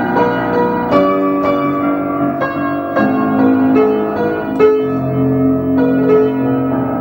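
Piano playing a slow passage of struck chords and melody notes that ring on, with no singing.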